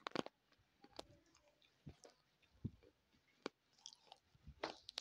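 Faint, scattered sharp clicks and soft taps right at a clip-on microphone as fingers handle it.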